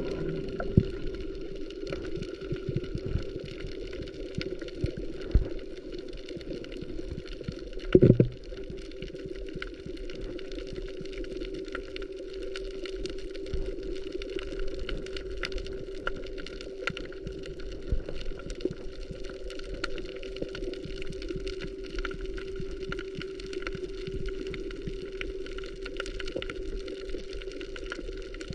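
Underwater sound picked up on a diving camera: a steady droning hum with scattered sharp clicks and crackles, and one louder knock about eight seconds in.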